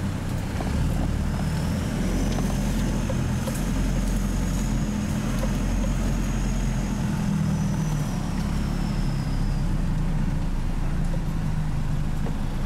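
Off-road 4x4 engine and drivetrain running steadily at low speed, a continuous low rumble heard from inside the cabin, with a faint high whine rising and fading in the middle.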